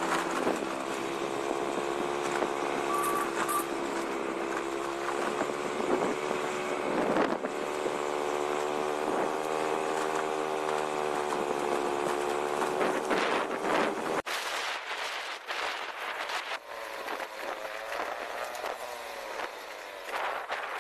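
Engine of a moving vehicle running steadily, its note rising and falling slightly with speed, with wind rushing over the microphone. About 14 seconds in, the sound suddenly thins and the engine becomes fainter under irregular wind gusts.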